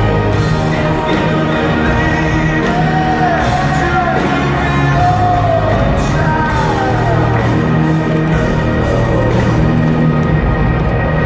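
Live rock band playing loudly through the PA, with electric guitars, bass and drums, heard from amid the audience in a large hall. A voice sings long gliding melody notes through the middle.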